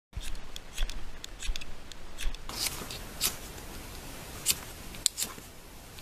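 Hands working in a pile of dry tinder and kindling: a quick run of small clicks, crackles and scrapes. From about halfway there are a few separate, louder scraping strokes.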